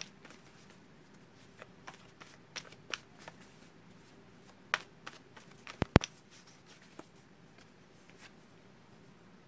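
Tarot deck being shuffled in the hands: scattered soft card clicks and taps, with two sharp knocks close together about six seconds in.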